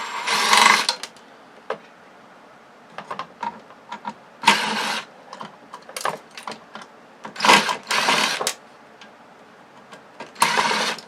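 Cordless screw gun run in about six short spurts, each half a second to a second long, with small clicks and taps from handling the board between them.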